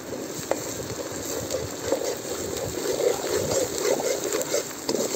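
Ginger paste frying in hot oil in an aluminium pot, a steady sizzle, while a long steel spoon stirs it, scraping the pot with a few sharp clinks.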